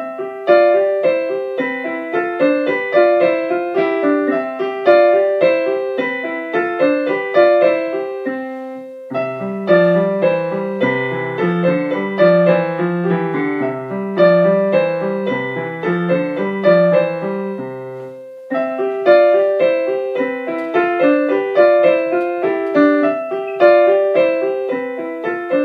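Background music: an electric piano playing quick, even runs of notes, with a lower bass line joining in the middle section and brief breaks between sections.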